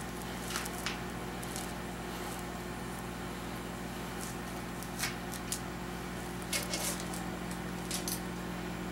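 Scattered light metallic clicks of a hand wrench working the intake manifold bolts down in a crisscross pattern, over a steady low hum.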